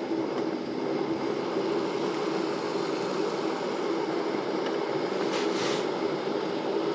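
Backpacking gas canister stove burner running steadily under a kettle of water, then shut off near the end as its valve is closed.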